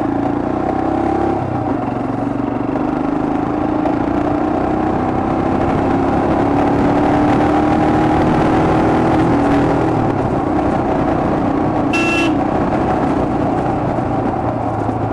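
Royal Enfield Himalayan's 411 cc air-cooled single-cylinder engine running as the bike is ridden along a road, its note rising a little and then easing off. A short horn toot about twelve seconds in.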